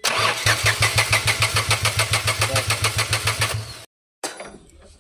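Renault Kwid three-cylinder petrol engine cranking on the starter motor: an even, fast chugging of about seven pulses a second that does not catch, stopping abruptly just before four seconds in, followed by a single click. The engine is being cranked to check injector firing, and the mechanic finds two of the three injectors not firing.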